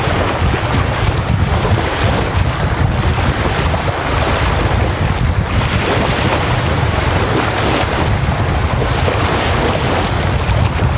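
Small wind-driven lake waves breaking and washing up a sandy shore, surging every few seconds. Strong wind hits the microphone as a steady low rumble under the water.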